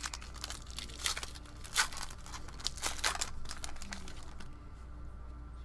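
Wrapper of a 2017 Elite Draft Picks football card pack being torn open and crinkled by hand, in quick crackly bursts that stop about four and a half seconds in as the cards come out.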